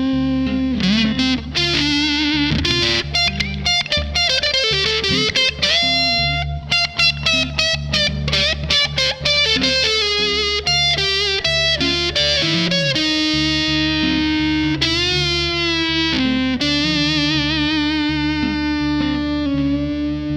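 Electric guitar played through a fuzz pedal: a distorted single-note lead line with string bends, wide vibrato and long sustained notes.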